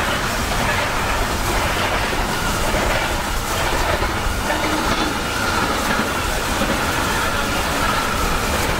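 DB class 23 steam locomotive 23 023 rolling slowly along the track, a steady rumble with its wheels clicking over the rail joints. A thin wheel squeal rises from about halfway through as it takes a curve.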